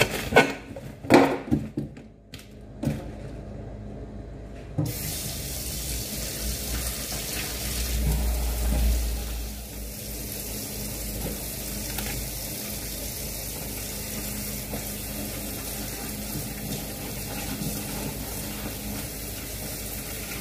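A few sharp knife chops on a cutting board as a head of romaine lettuce is cut. About five seconds in, a kitchen tap starts running steadily into the sink while the lettuce is rinsed under it.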